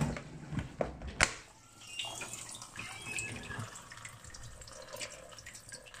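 Water dripping and trickling inside an Indesit DSG 263 dishwasher paused mid-wash. A sharp click about a second in is the door latch being released.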